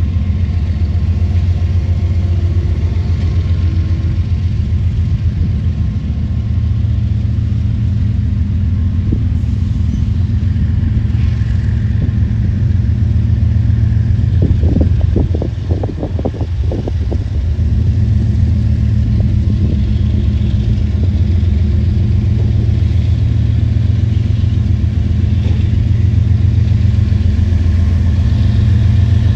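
Diesel locomotives of a freight train working steadily under load as the stopped train gets moving upgrade, a deep continuous rumble. About fifteen seconds in there is a brief run of clanks.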